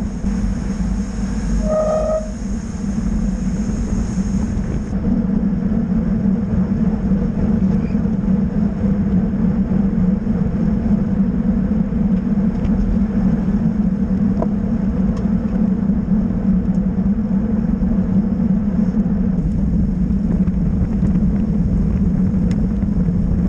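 Steady rumble of road and wind noise picked up by a camera mounted on a racing bicycle riding in a bunch of road cyclists. A short high toot sounds about two seconds in.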